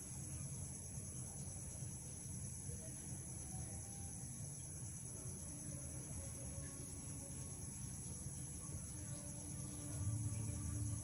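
A covered pot of fish soup simmering on the stove, a low steady rumble that grows louder near the end. Crickets trill steadily in the background.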